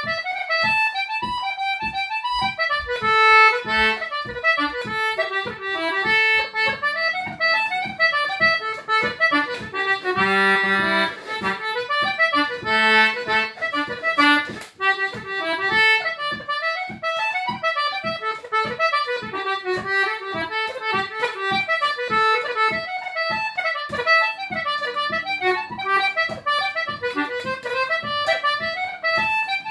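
Anglo concertina playing an Irish reel at normal speed: a quick, unbroken run of melody notes with occasional held low chord notes underneath.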